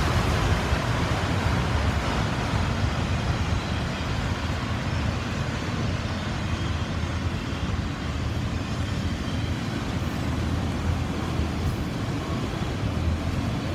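Empty autorack freight cars rolling past on the rails: a steady rumble of steel wheels on track.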